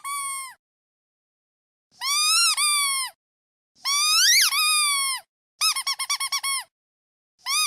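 Squeaky duck toy being squeezed: a squeak ending just after the start, then two long squeaks, the second rising sharply in pitch midway, then a quick run of about eight short squeaks, and another squeak starting near the end.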